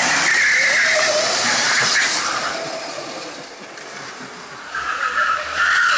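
Electric go-kart's tyres squealing and skidding on paving stones as it spins its wheels under hard acceleration, a loud hissing screech that starts suddenly, fades for a couple of seconds in the middle and comes back loud near the end.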